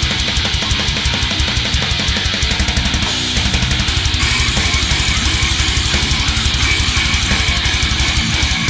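Heavy metal music: distorted guitars over very fast, even kick-drum beats. The rapid cymbal hits drop away about three seconds in.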